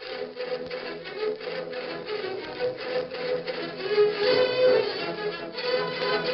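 Orchestral theme music led by strings: a quick pulsing passage for the first four seconds, then held notes, then the full orchestra again near the end. The recording is a 1940s radio broadcast with a dull, narrow top end.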